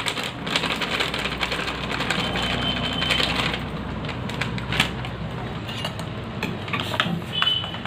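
Curry bubbling in a wok on a gas stove, a steady rapid crackling patter, with a few clicks and a plastic packet rustling as milk powder is handled beside a steel bowl.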